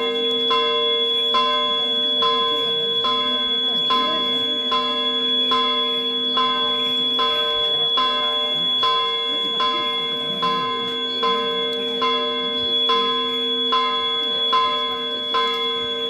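Church bells ringing in a steady, even beat of a little more than one stroke a second, each stroke over a long, continuous humming ring.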